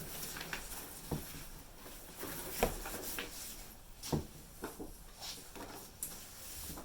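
Scattered light knocks, clicks and rustles of grill parts and packaging being handled, the two sharpest knocks about two and a half and four seconds in.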